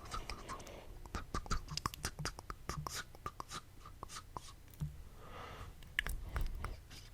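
Close-miked ASMR mouth sounds: a quick run of wet tongue clicks and lip smacks, with a couple of short breathy puffs, one at the start and one about five seconds in.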